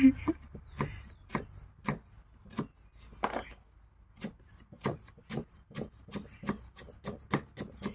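A kitchen knife slicing lemongrass stalks into thin rings on a thick round wooden chopping block: a series of sharp chops on the wood. They come about two a second at first and quicken to three or four a second in the second half.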